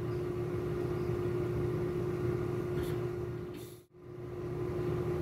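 Steady background hum with one constant mid-pitched tone over a low drone and faint hiss, dropping out briefly just before four seconds in.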